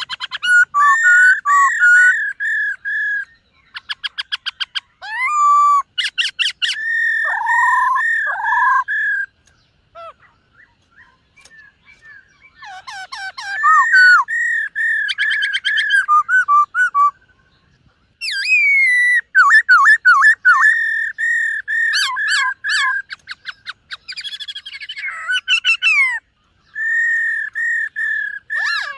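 Black-throated laughingthrush singing loud whistled phrases that slide up and down, mixed with fast rattling trills, in bursts broken by short pauses.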